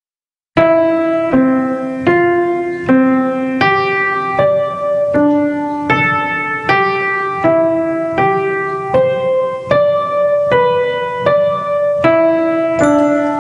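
Piano music in which the digits of pi are played as notes and chords of a major scale at 157 beats per minute: a struck chord with a melody note on top about every three-quarters of a second, starting about half a second in. Higher chiming notes join near the end.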